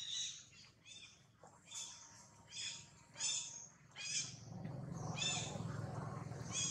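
Newborn macaque giving a string of short, high-pitched squeals, about ten over six seconds. A low rumble joins in the second half.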